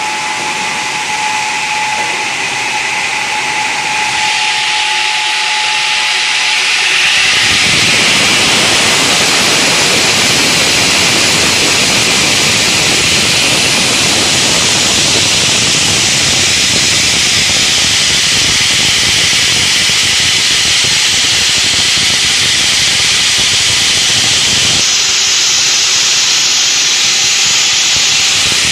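Multi-blade stone saw cutting a granite block: a loud, steady hiss and grind of the blades in the stone. The noise grows louder and fuller about seven seconds in, then holds steady.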